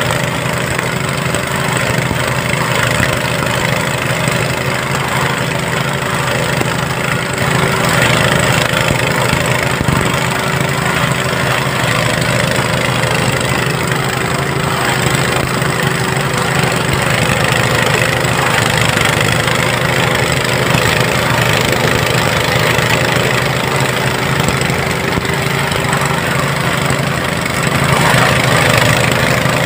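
Small engine driving a portable rice thresher, running steadily at constant speed.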